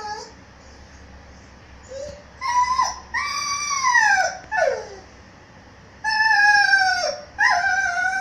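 Puppy howling and whining in a string of high, drawn-out cries, most sliding down in pitch, starting about two seconds in with a short break in the middle. It is a shut-in dog's plea to be let out of the room.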